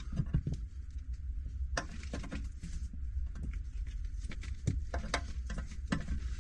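Irregular clicks, taps and rustles of gloved hands pushing and twisting a cemented CPVC pipe into its fitting, over a steady low hum.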